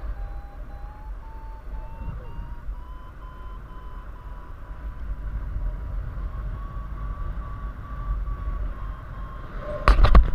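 Paragliding variometer beeping in a steady, rapid run while climbing in a thermal, its pitch slowly rising as the climb strengthens, over low wind noise on the microphone. A few loud knocks come near the end.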